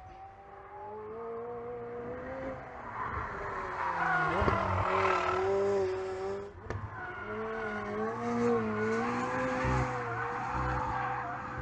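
McLaren 765LT's twin-turbo V8 engine running on track, its note rising and falling with the throttle and growing louder towards the middle, with two brief breaks in the note.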